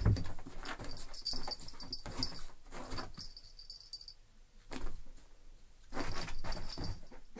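A wire-haired fox terrier and a cat play-fighting on a sofa: scuffling, pawing and thumps, the heaviest right at the start. A collar jingles through roughly the first half, then there are pauses broken by short bouts of scuffling.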